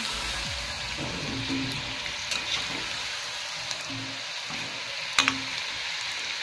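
Hot oil sizzling steadily around batter-coated potato balls deep-frying in a steel kadai, the pieces nearly done. A sharp metal clink, the slotted spoon against the pan, stands out about five seconds in.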